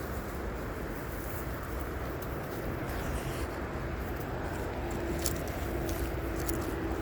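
Steady outdoor background noise with a faint low hum joining about five seconds in, and a few light clicks in the second half.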